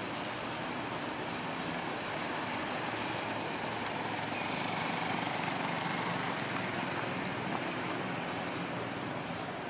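A heavily loaded dump truck carrying limestone rocks drives away, its engine running steadily with tyre noise on gravel. The sound swells slightly about halfway through.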